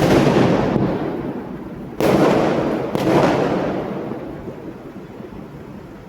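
Fireworks exploding: three loud bangs, one right at the start, one about two seconds in and another a second later, each trailing off in a long fading rumble that echoes across the city.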